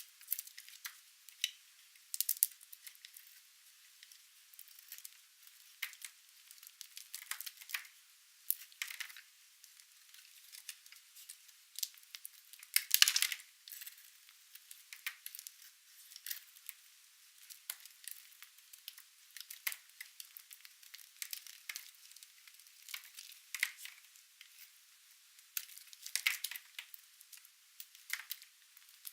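Dry, painted soap being cut: irregular crisp crunches and scrapes, one of the loudest about halfway through.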